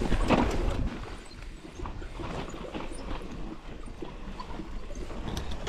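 Mountain bike riding down steep loose volcanic dirt: tyres crunching and sliding, with an irregular clatter of small knocks over a low rumble.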